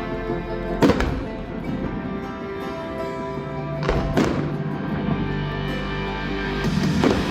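Music plays steadily while firework shells burst with sharp booms: one about a second in, two in quick succession around the middle, and one near the end.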